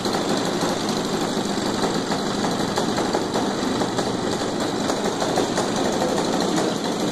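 Small weeder engine converted for an RC plane, running steadily while it turns an 18-inch propeller.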